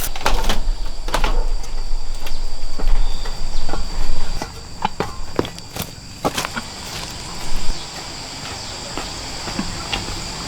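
Footsteps on a forest floor, with irregular crunches and twig snaps that thin out after about six seconds, over a steady high insect drone.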